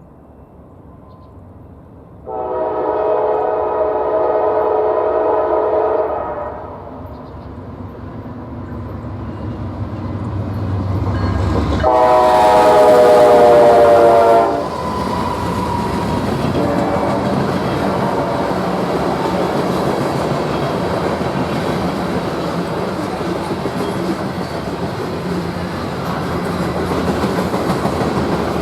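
Diesel locomotive's multi-chime air horn sounding two long blasts as the train approaches, the second louder. The train then passes with a steady rumble and clatter of wheels on the rails.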